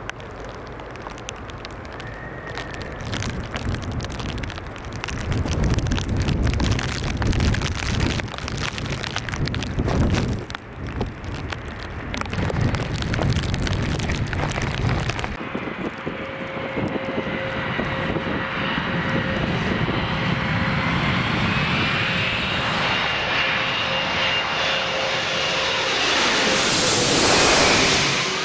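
Jet airliner landing in rain, its engine noise mixed with gusting wind on the microphone. About halfway through it gives way to an Antonov An-124's four turbofan engines on low approach: a steady whine that grows louder, sweeps overhead near the end and drops in pitch as it passes.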